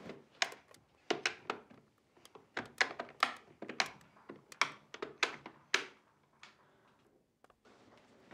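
Sharp, irregular clicks and knocks from a corded telephone being handled, its receiver lifted and its keys pressed, about a dozen in all over some six seconds.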